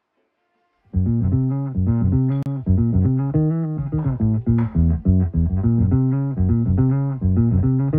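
Background music with plucked guitar over a bass line in a steady rhythm, starting about a second in after a moment of near silence.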